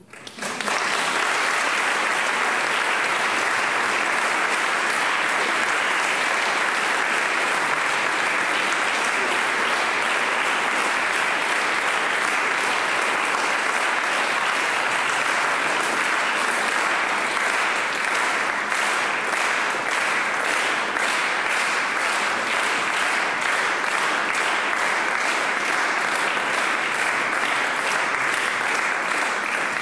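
Audience applauding in a reverberant hall, breaking out about half a second in and continuing steadily. In the second half the clapping settles into a regular rhythm.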